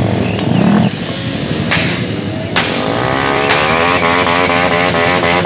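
Motorcycle engines revving on the street. One engine's pitch climbs steadily through the second half as it accelerates, and a couple of sharp cracks come about two and two and a half seconds in.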